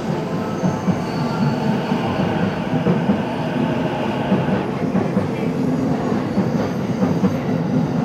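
Electric commuter train running along the station platform: a steady, loud rumble of wheels on rail and running gear.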